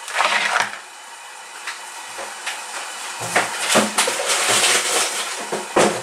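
Frozen Brussels sprouts poured from a plastic bag into a plastic bowl: the bag crinkling and the hard frozen sprouts clattering and knocking against one another and the bowl, heaviest in the second half.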